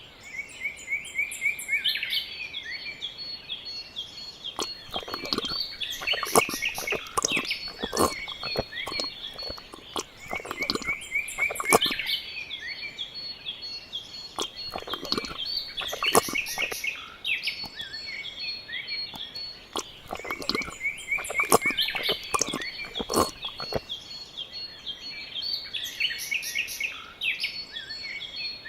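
Birds chirping and twittering in a continuous chorus of quick, repeated high calls, with scattered sharp clicks through it.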